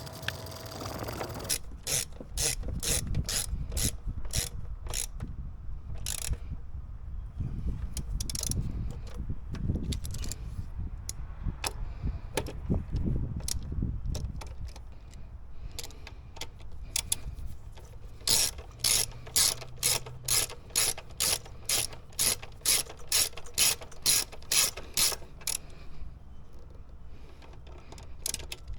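Hand ratchet wrench clicking in steady runs of strokes, about two to three clicks a second, as a fastener is worked.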